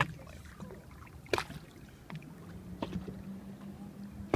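A few sharp knocks, one strong one early on, over a low wash of wind and water noise; about halfway in a steady low hum starts and holds.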